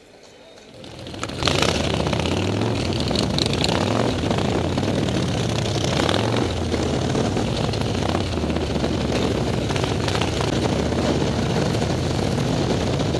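Harley-Davidson V-twin motorcycle engine running while the bike rides along, with wind rush on the microphone. The sound swells in over about the first second and a half, then holds steady.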